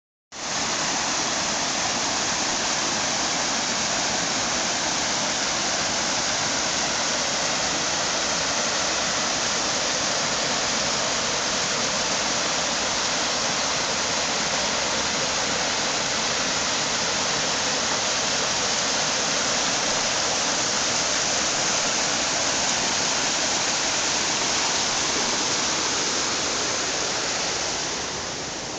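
Small woodland stream cascading over rocks in a little waterfall, a steady rushing of water that eases slightly near the end.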